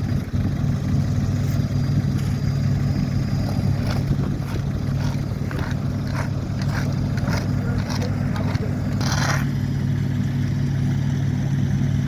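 Heavy diesel engine of asphalt-paving machinery running steadily at a constant speed. Scattered scrapes and knocks sound over it, with a brief rasping noise about nine seconds in.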